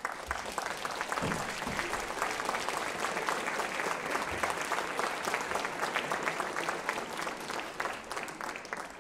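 Audience applauding: dense, steady clapping from many hands that dies away right at the end.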